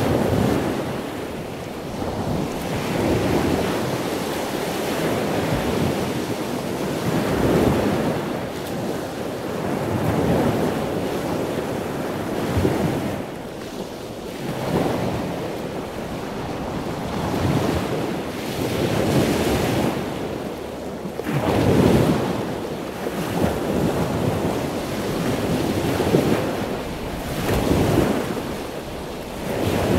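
Gusty stormy wind, rising and easing every couple of seconds and buffeting the microphone.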